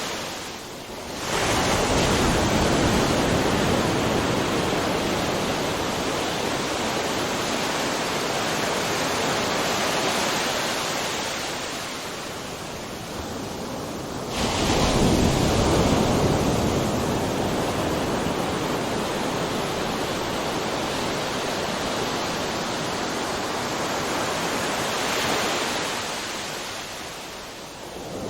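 Ocean waves crashing: one breaks about a second in and another, more sudden, about halfway through, each fading into a long steady rush of surf, with a smaller swell near the end.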